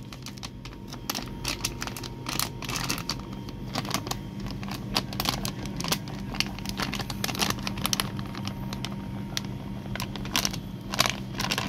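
Plastic spice packets crinkling as spice powder is shaken out into a plastic tub, with irregular crackles, over a steady low hum.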